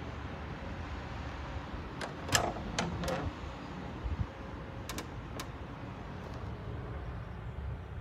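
Mini tumble dryer door being opened: a sharp click of the latch releasing about two seconds in, followed by a few knocks and lighter clicks from the door and drum, over a steady low rumble.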